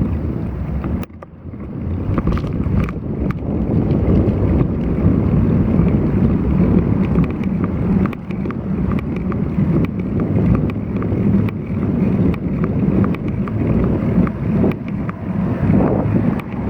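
Strong wind ahead of an approaching typhoon buffeting an action camera's microphone while cycling: a loud, low rumbling noise with scattered small clicks. It drops out briefly about a second in.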